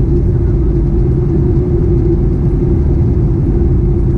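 Steady cabin noise of a Boeing 737-800 in flight, heard from a window seat by the wing: a deep rumble from the CFM56-7B engines and the airflow, with a steady hum on top.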